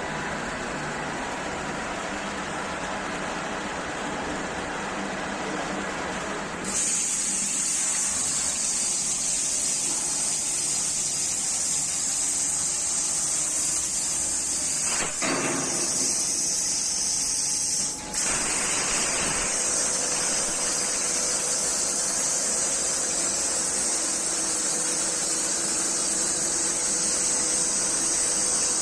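CNC plasma cutting machine at work: a steady machine noise, then about a quarter of the way in the plasma torch's cutting arc strikes up with a loud, even high hiss that runs on, broken twice by brief gaps.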